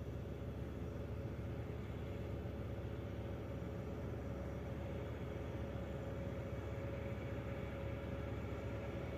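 Heavy truck engines running steadily in slow highway traffic: an even low rumble with a constant hum, with no revving or change.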